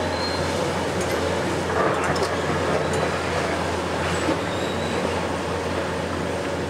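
Heavy diesel demolition excavator running steadily under load, a constant low engine note under a broad mechanical din. A few sharp knocks and cracks of concrete debris come about two seconds in.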